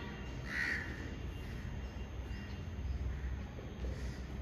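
A crow caws once, faintly, about half a second in, over a low steady rumble of room and outdoor background. Faint short marks follow, fitting a marker writing on a whiteboard.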